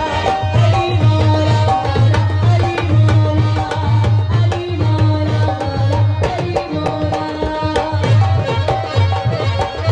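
Live South Asian folk music with a tabla beat and a pulsing bass, a melody line moving above the drums.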